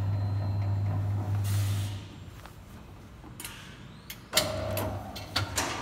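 Electric paper cutter's motor running with a steady low hum that cuts off about two seconds in. Then come several sharp metallic clicks and clunks from the machine.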